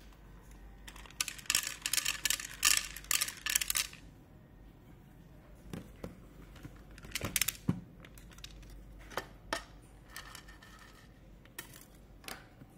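Dry kibble pellets dispensed by an automatic pet feeder rattling into its plastic bowl: a quick run of clicks for about three seconds, starting about a second in. A few scattered knocks follow as the bowl is handled.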